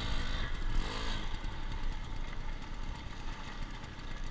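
Motorcycle engine running steadily at low revs while the bike rolls slowly.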